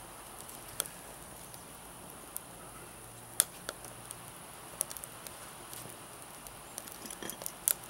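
Wood fire burning in a small pipe rocket stove, with sharp pops and crackles at irregular intervals over a faint steady hiss.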